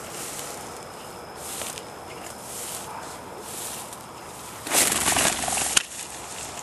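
Footsteps swishing through dry grass and brush, about one a second, then a louder rustle of branches scraping close by for about a second, ending in one sharp snap.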